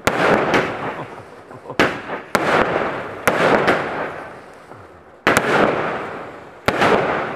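Fireworks bursting overhead in quick succession: about six sharp bangs at uneven intervals, each trailing off over a second or so as the red and white stars spread.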